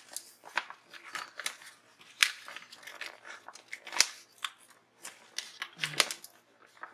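Paper and stickers being handled on a desk: irregular crisp clicks, snips and rustles, with sharper clicks about two and four seconds in.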